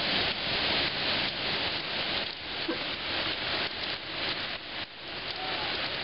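Heavy storm rain, a dense steady rush whose loudness swells and dips irregularly, as in gusts.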